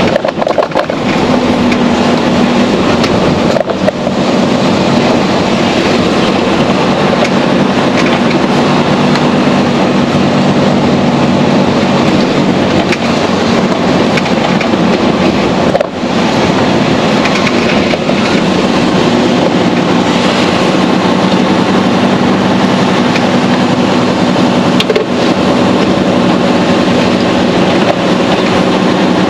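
Mercedes-Benz Actros SLT heavy-haulage truck driving, heard from inside the cab: the diesel engine runs with a steady low hum, over road and tyre noise, with a brief dip in level about halfway through.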